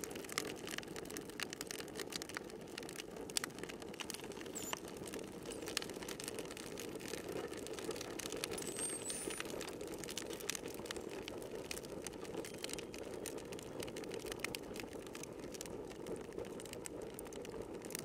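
Campfire crackling steadily: many small irregular pops and snaps over a low, soft rushing hiss.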